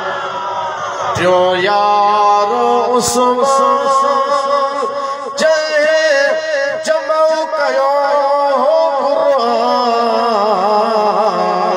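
A man's voice chanting a Sindhi devotional salaam verse into a microphone, drawing out long, melismatic notes that waver in pitch.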